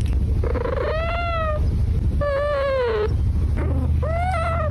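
A domestic cat meowing three times in long, drawn-out meows that rise and fall in pitch, over a steady low rumble.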